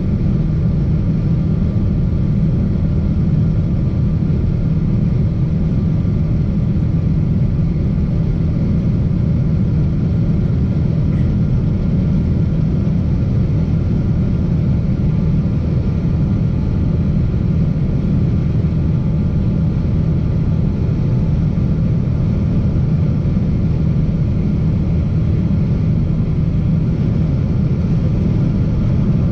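Boeing 777-200 jet engine and airframe noise: a steady, even low rumble with faint steady tones above it, holding the same level throughout.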